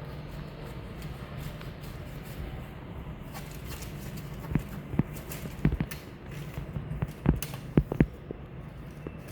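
A handful of irregular light knocks and taps, clustered from about halfway through, over a steady low hum.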